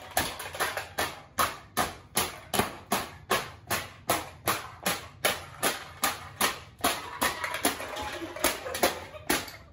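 Empty aluminium drink cans being stamped flat one after another on a concrete floor, a sharp crunch with each step, about three a second in a steady run.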